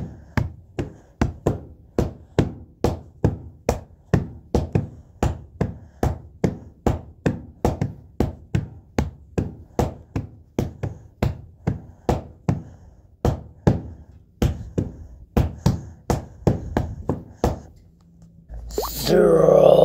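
Sharp knocks repeating at an even pace, about two and a half a second, each with a short ringing tail. About a second and a half before the end, the knocking stops and a louder sound with a wavering pitch comes in.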